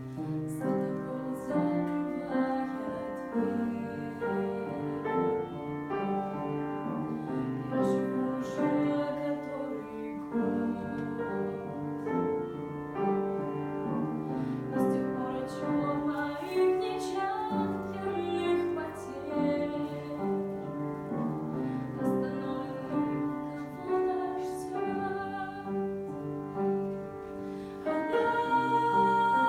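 Piano playing a flowing passage of the song, many notes struck in quick succession. Near the end the music swells louder and fuller.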